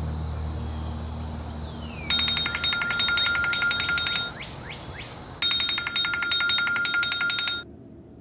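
Smartphone alarm ringing: a fast, evenly repeating electronic beeping in two bursts of about two seconds each, with a short pause between, stopping shortly before the end. Soft music fades out at the start under a steady high tone.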